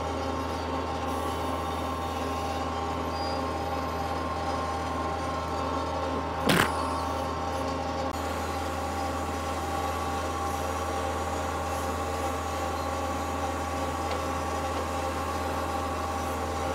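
Compact diesel tractor engine running steadily, powering its backhoe, with one sharp knock about six and a half seconds in.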